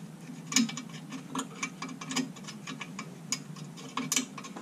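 Irregular light metallic clicks and ticks of small screws being handled and turned by hand against a steel steering-column bracket.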